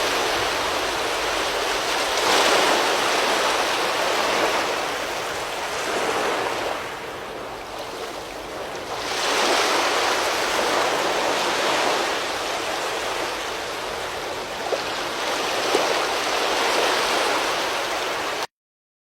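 Storm wind blowing hard, a rushing noise that swells and eases in long gusts, with a couple of brief knocks in the second half; it cuts off suddenly near the end.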